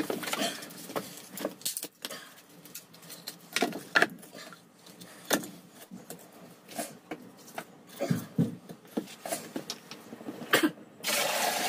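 Scattered knocks, clicks and scrapes of firewood being handled and laid into a clay cookstove under a metal pot. A steady rushing noise starts near the end.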